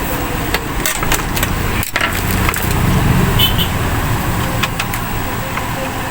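Steady low rumble of background noise, like road traffic, with scattered sharp clicks and light knocks.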